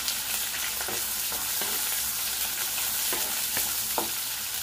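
Sliced onions and tempering spices sizzling in hot oil in a pan, stirred with a spatula that scrapes and taps against the pan every so often.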